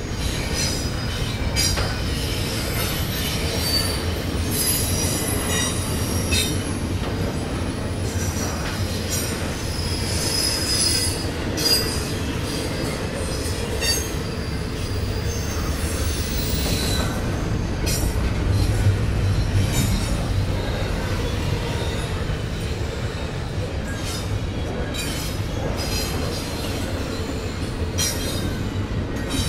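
Norfolk Southern freight train rolling past: a steady rumble of wheels on rail, with short high-pitched wheel squeals coming and going throughout.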